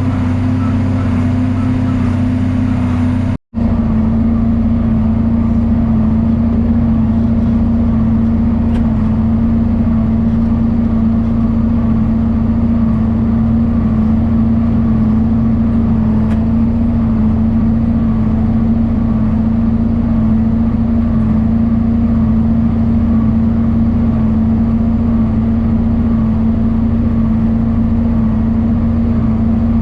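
John Deere 4430 tractor's turbocharged six-cylinder diesel running steadily under load, a constant drone with a strong low hum. The sound breaks off for a moment about three seconds in, then carries on unchanged.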